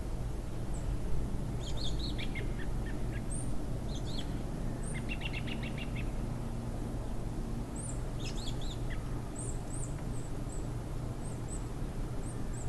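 Small birds chirping in short, high calls, with a quick rattling trill about five seconds in, over a steady low outdoor rumble.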